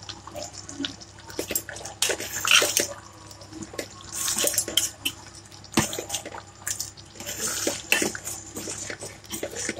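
A steel ladle stirring thin, simmering pepper gravy in a steel pot, mixing in freshly added ground pepper-and-spice powder: irregular sloshing swishes of liquid, with a few sharp clinks of the ladle against the pot.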